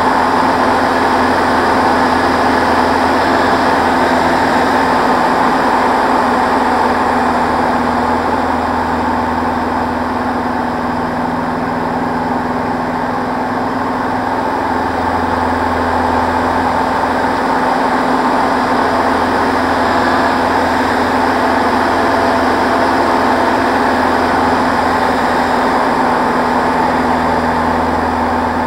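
Van's RV-6A light aircraft's piston engine and propeller droning steadily in flight at about 2,500 rpm, with a constant low hum and little change in level.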